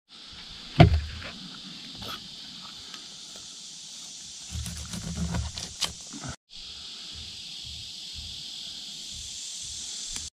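A heavy thump about a second in as a fish is set down on a weathered wooden plank, then knife work cleaning the crappie around the middle: cutting and scraping, with small knocks on the wood. A steady high-pitched drone of summer insects runs underneath.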